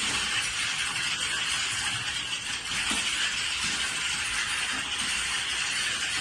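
Many computer keyboards being typed on at once, a dense continuous clatter of keystrokes that blend into an even wash.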